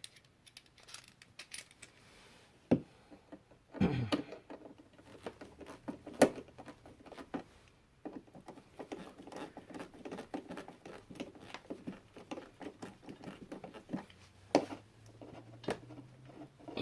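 Irregular light clicks and scrapes with a few sharper knocks, from hands working a USB duplex electrical receptacle and its wires into the wall box. The clicking is densest through the middle, and the loudest knocks come about four and six seconds in.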